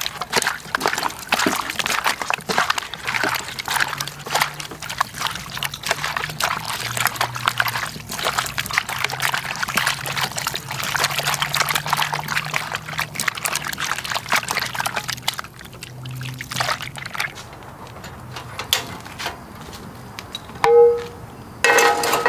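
Raw iguana meat being rinsed by hand in a frying pan of water: water pouring, dribbling and sloshing as the pieces are rubbed, dying down after about fifteen seconds. A few sharp clicks near the end.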